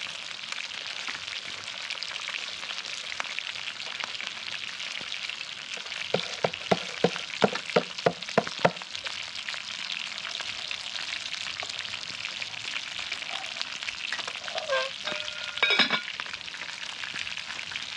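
Fish frying in oil in a skillet over a wood fire, a steady sizzle. About six seconds in comes a quick run of about eight sharp taps, and near the end a metal lid clanks onto the pot and rings briefly.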